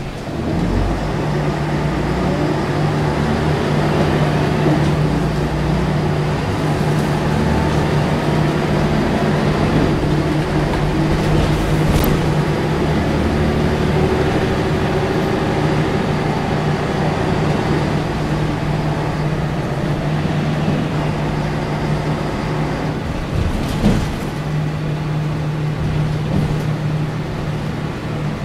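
Volvo B10M's six-cylinder turbo diesel engine running as the bus drives, heard from inside the passenger cabin, a steady drone whose low note fades and returns. A sharp click sounds about twelve seconds in and a short knock near the end.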